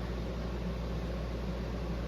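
Harbor Breeze Lakeside ceiling fan running at medium speed: a steady motor hum under an even whoosh of air.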